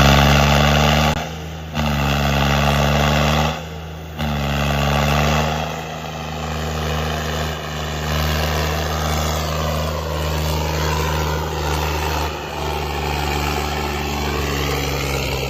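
Diesel tractor engine running steadily at a raised throttle, its note dipping briefly about a second and a half in and again about four seconds in.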